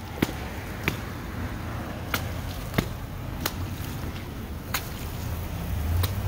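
Footsteps on a wet concrete sidewalk: sharp slaps about one and a half a second, with a few gaps, over a steady hiss. A low rumble grows louder near the end.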